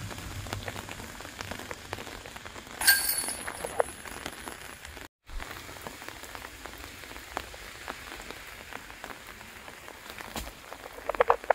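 Steady rain with scattered drips. About three seconds in, a single sharp metallic clash with a short ring: a putted disc hitting the chains of a disc golf basket.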